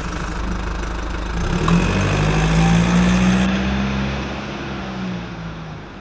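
Vehicle engine running, its pitch rising slightly and getting louder about a second and a half in, then fading away.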